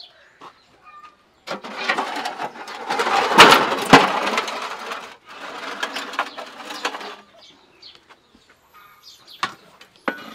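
A flat metal scraper on a long wooden handle scraping and raking embers and ash across the brick floor of a wood-fired oven. The harsh scraping lasts several seconds, with two sharp knocks in the middle, and lighter scrapes follow near the end. Birds chirp faintly at the start.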